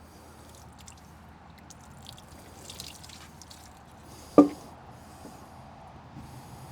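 Hose fittings being handled: scattered light clicks, a brief hiss about three seconds in, and one sharp tap about four and a half seconds in.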